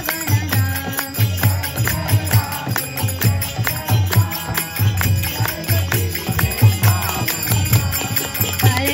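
Devotional kirtan music: a mridanga drum beating a steady rhythm, with small hand cymbals jingling on the beat over harmonium and voices singing.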